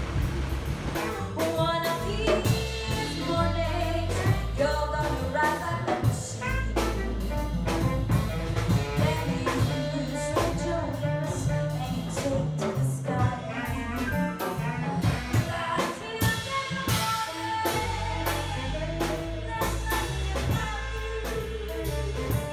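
Jazz-style music with a singer, drum kit and other instruments, playing steadily.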